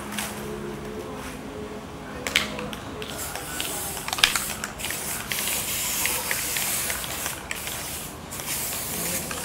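Aerosol spray-paint cans hissing in repeated bursts as broom straw is sprayed, mostly in the second half, with a few sharp clicks before.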